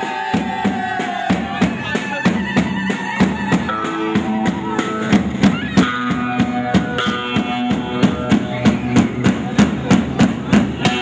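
Fast halay dance music played with a drum kit: a quick, steady beat of about four to five hits a second under a stepping melody line.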